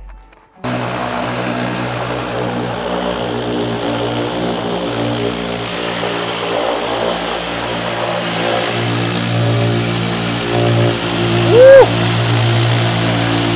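Pressure washer running, a steady motor hum under the hiss of its water jet rinsing out a dirty wheel arch. It starts about half a second in and grows louder toward the end. A short squeak rises and falls near the end.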